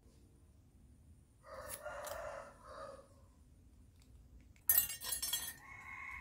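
Small scissors snipping through the rim of an aluminium Pepsi can bottom: a quick run of sharp metallic clicks and crunches near the end, the loudest sound. Before it, about a second and a half in, a drawn-out pitched call sounds in the background.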